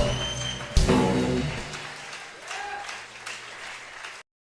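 Background music closing out: a last strong hit just under a second in, then the sound dies away and cuts off abruptly about four seconds in, leaving dead silence.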